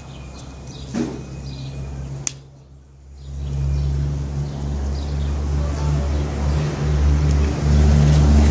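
A steady low engine rumble that grows louder after about three seconds. Two sharp clicks come in the first half, plastic parts of a small toy model being handled.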